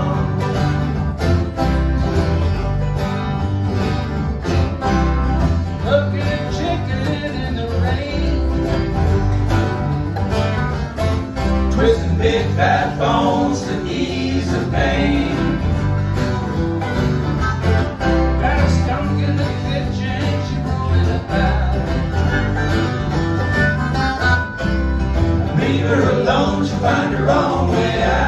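Live acoustic string band playing a bluegrass-style song: strummed acoustic guitars and plucked strings over a steady bass line.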